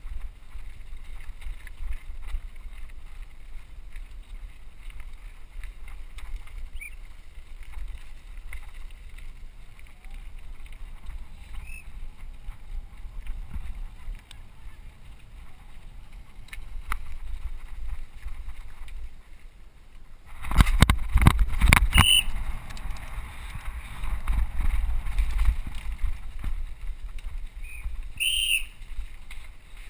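Mountain bike riding over a gravel track, heard through a helmet camera's microphone: a steady low rumble of wind and tyres, with a burst of loud rattling knocks about two-thirds of the way through, then a few seconds of louder rushing noise.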